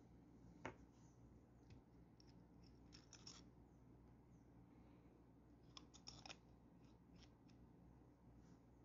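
Near silence with faint scattered clicks and ticks from a fountain pen being handled: the Waterman Laureat's barrel unscrewed off the section and put back on, its parts tapping together. The clicks come singly at first, then in two small clusters in the middle.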